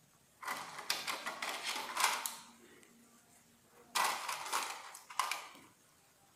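Small clips clattering in a small cup, in two bursts of rapid clicking, the first about two seconds long and the second a little shorter.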